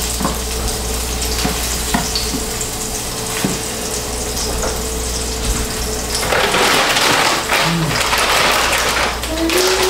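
Food sizzling in a frying pan, with a few light taps of the utensil against the pan. From about six seconds in, a louder rustling of a plastic bag joins the sizzle for a few seconds.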